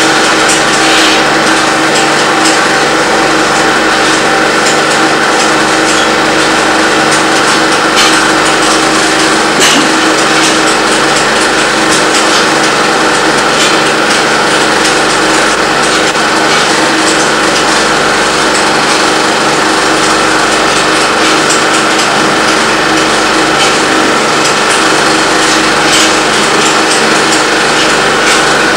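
Home-movie film projector running: a steady mechanical whir with a fine, rapid clatter of the film advancing, unbroken and even in level.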